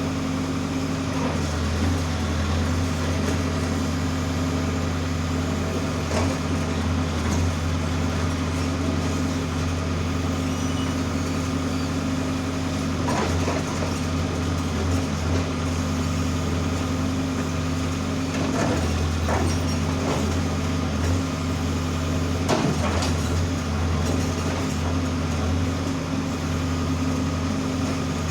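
Diesel engine of a Case 570T backhoe loader running steadily, its pitch and level shifting a little now and then, with a few short knocks through it.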